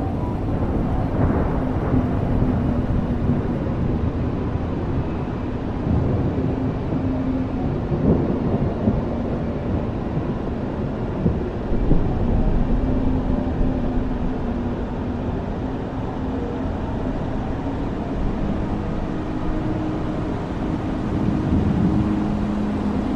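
Steady rain with a continuous low rumble, even throughout with no distinct events.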